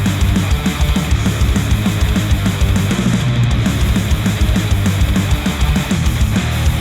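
Heavy, distorted rock music with fast, dense drumming, played back through open-back studio headphones and picked up by microphones at the earcups.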